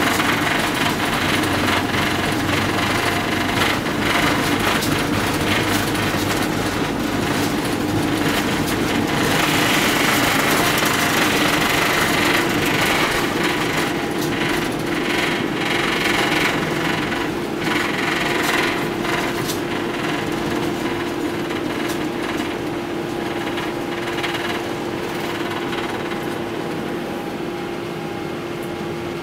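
Boeing 777-300ER's twin GE90-115B turbofans at takeoff thrust: a loud, crackling jet roar that slowly fades as the airliner climbs away.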